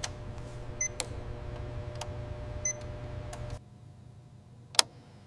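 Short electronic beeps and sharp clicks from test equipment, twice a brief high beep, over a steady low electrical hum. The hum cuts off about three and a half seconds in, leaving quiet room tone and one more sharp click.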